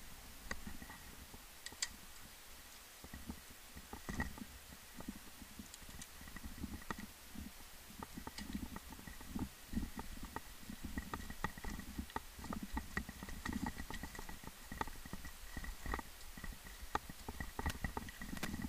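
Mountain bike jolting down a loose, rocky trail: a constant low rumble with irregular clattering knocks, several a second, as the wheels hit stones.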